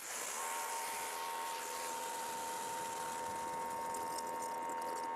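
Greenworks 2300 psi electric pressure washer running steadily under load, spraying through a 3.5 mm 40-degree nozzle into a bucket at about 1200 psi. A steady hum with several held tones sits over a hiss of water.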